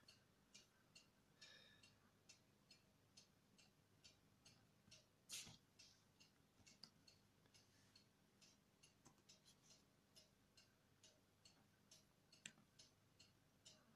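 Near silence with a faint, regular ticking a little over twice a second. A few louder clicks come from a laptop touchpad being clicked, the loudest about five seconds in and another near the end.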